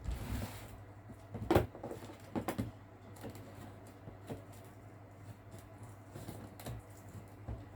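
Scattered light knocks and clicks of packaging and parts being handled, the loudest about one and a half seconds in and a few more near two and a half seconds, then only faint occasional ticks.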